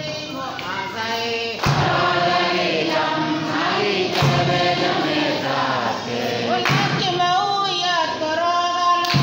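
Church choir singing, several voices together, with a low thump about every two and a half seconds.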